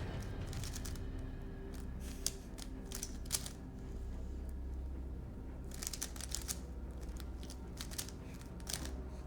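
Rubik's cubes being turned fast, their plastic layers clicking and rattling in irregular bursts over a low steady hum.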